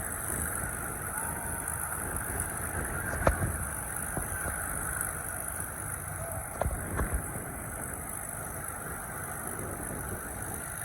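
Piston aircraft engines running steadily at a distance, heard as a constant hum with no clear pitch. A few short knocks come about three seconds in and again near seven seconds.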